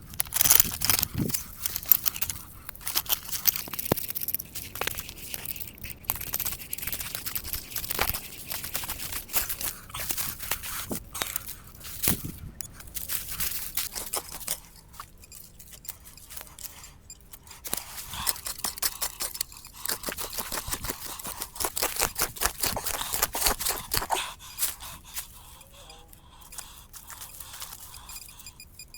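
Dry leaves and twigs crunching and crackling in fast, irregular clicks, with a quieter stretch about halfway through.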